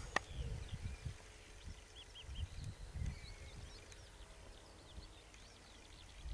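Several small birds singing and chirping faintly, many short high calls overlapping, with uneven low rumbles of wind buffeting the microphone. A single sharp click sounds just after the start.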